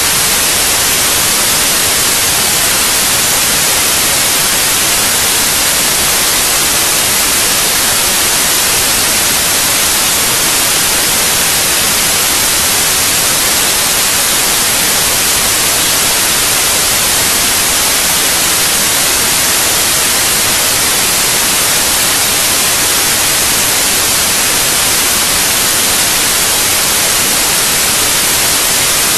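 Steady, loud white-noise hiss like static, even and unchanging, with no engine tone or other sound standing out from it.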